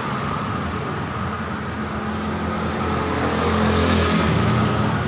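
A bus passing by with its engine running and road noise, growing louder to a peak about four seconds in.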